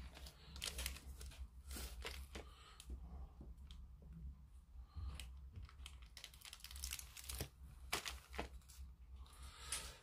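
A thin plastic bag crinkling as it is handled and slit open with a craft knife: scattered faint crackles and rustles, with a few sharper crackles.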